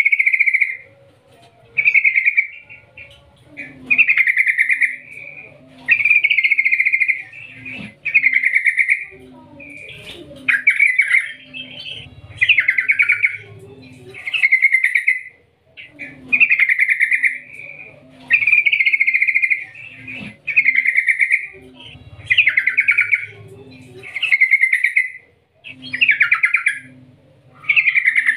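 Yellow-vented bulbul in full song (gacor): a run of short rapid rolling, trilled phrases, about a second each, repeated one every second or two.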